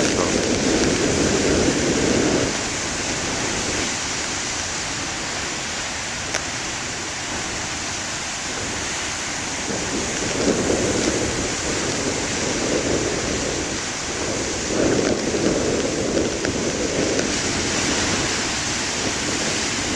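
Heavy ocean surf: big waves breaking and washing up the beach, a steady rush of water with louder surges at the start, about ten seconds in, and again around fifteen seconds.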